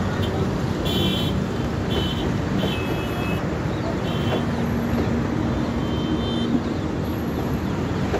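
Passenger train of LHB coaches rolling past at speed: a steady rumble of wheels on the rails, with a few brief high-pitched tones in the first half.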